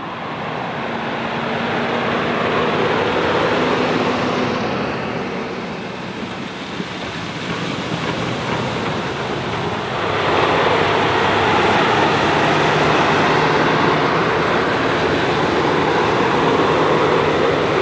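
Versatile 620 DeltaTrack tractor working under load with a 35-ft Versatile Fury high-speed disc cutting through corn stalks: engine and disc gangs make a steady rushing noise, dipping briefly and then growing louder from about ten seconds in.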